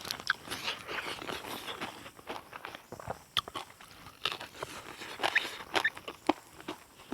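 Close-up chewing and crunching of food in the mouth: irregular wet smacks and crisp crackles with no steady rhythm.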